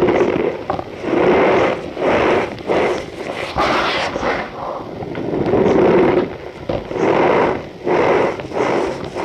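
Compressed cornstarch pieces crushed and squeezed by hand, giving a squeaky, crunching sound. It comes as a run of separate squeezes, about one a second.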